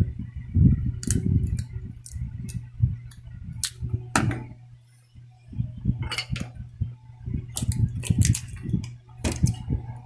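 Bench handling noise: scattered clicks, taps and low thumps as a small taped circuit board and metal hand tools are handled on a rubber work mat. The clicks are busier and louder in the second half, over a steady low hum.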